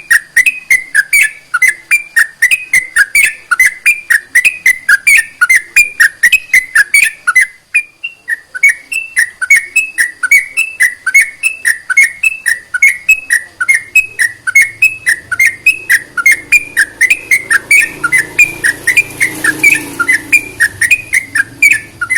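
Yellow-vented bulbul (trucukan) calling: a fast, even series of short whistled notes, about four a second, with a brief break about eight seconds in.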